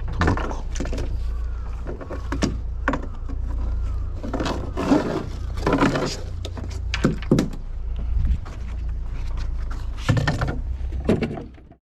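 Indistinct voices talking in short, scattered bursts over a steady low rumble.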